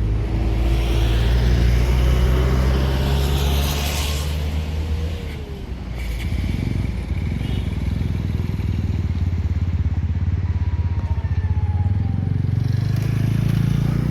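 Motor vehicle engine running steadily with road noise, the level easing briefly about five seconds in.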